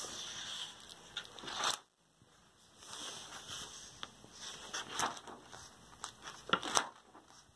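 Paper rustling and crinkling as the pages of a spiral-bound sketchbook are turned and handled, with a couple of sharper paper crackles near the end.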